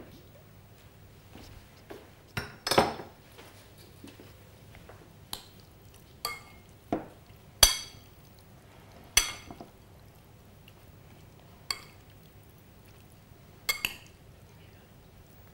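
Spoon clinking against a glass salad bowl as the salad is stirred: about ten sharp clinks at uneven intervals, some ringing briefly.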